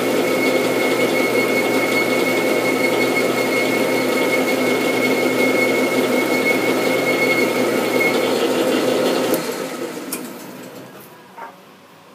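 Metal lathe running while a boring bar cuts inside a gear's bore, a steady machine noise with a thin high whine that stops about eight seconds in. About a second later the spindle is switched off and the lathe runs down to near quiet.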